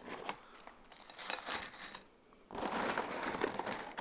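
A bag of tortilla chip strips rustling and crinkling as a hand reaches in and pulls out chips. It comes in two spells with a short pause about two seconds in.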